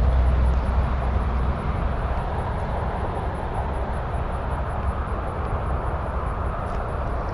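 Steady rumble of highway traffic, heaviest in the first second and a half and then easing.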